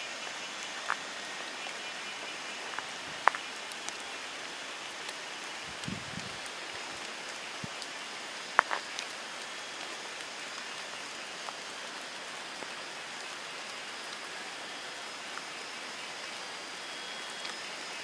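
Outdoor nature ambience: a steady, even hiss with faint thin high tones in it, broken by a few sharp clicks, the loudest about three seconds and eight and a half seconds in.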